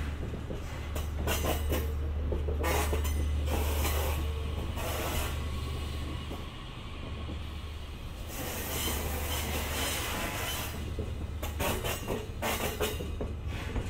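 E001 'TRAIN SUITE Shikishima' cars rolling slowly past, with a steady low hum under intermittent spells of wheel clicks and rattles over the rails.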